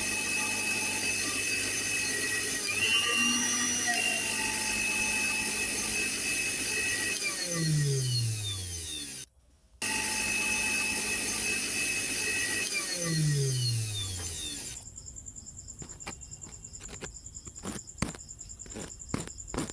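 Electric blender running steadily, then switched off and winding down with a falling whine. After a brief break it runs again and winds down a second time. It is followed by a quieter stretch of rapid, uneven clicks over a faint high steady tone.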